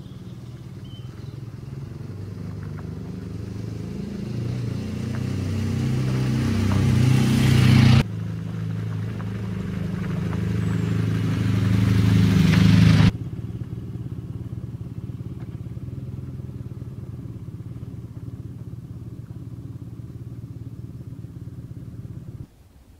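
BMW R nineT's air/oil-cooled boxer twin engine running under way at a fairly steady pitch, with wind rush. It grows louder over several seconds and cuts off abruptly, twice, then carries on steadier and quieter.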